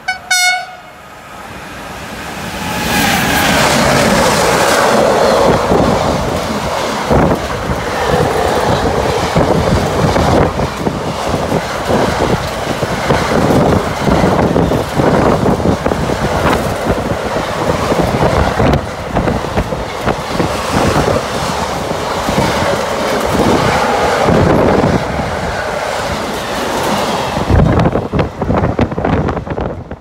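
Locomotive horn gives one short, high blast, then a freight train of double-deck car-carrier wagons passes at speed close by: a long, loud rushing rumble full of rapid clicks of wheels over rail joints.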